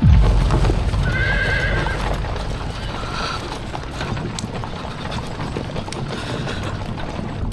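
Horses on the move: a whinny about a second in and a shorter call near three seconds, over hoofbeats and a low rumble that starts abruptly.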